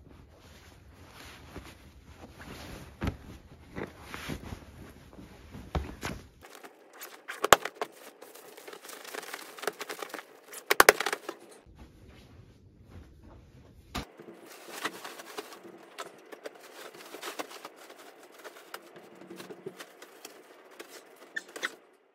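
Cotton bedding rustling as a pillow is worked into its pillowcase and pillows and sheets are handled on the bed, with a few sharper knocks around the middle.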